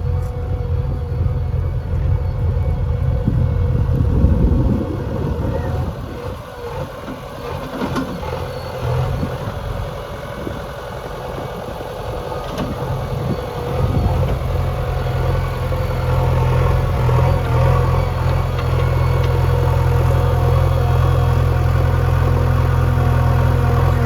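Heavy diesel engine running, a steady low hum that drops and wavers for several seconds mid-way, then runs steady and louder again through the last ten seconds.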